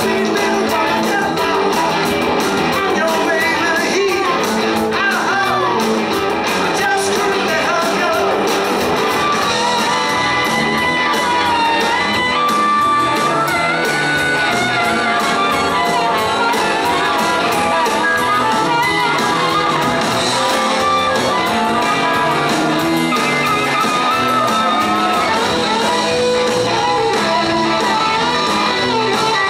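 Live rock band playing a fast rock and roll number on electric guitars, electric bass and drums, with harmonica played into a vocal mic. The sound is loud and steady, and a bending lead line rises over the band in the middle of the passage.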